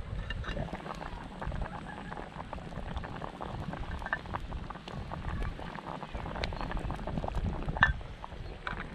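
A camping pot of fish soup bubbling at a boil over a wood fire, a steady dense crackle of small pops, with one sharper click near the end.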